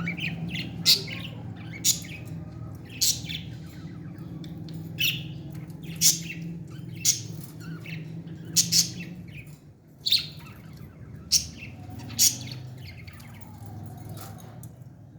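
Baby parrot calling while being fed: short, sharp, high-pitched calls repeated about once a second, over a low steady hum.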